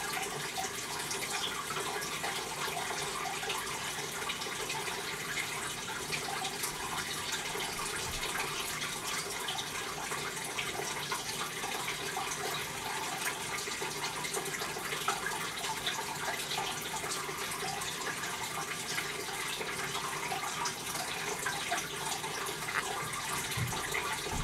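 Steady running-water noise, like a trickle or a filter outflow, with faint scattered clicks throughout.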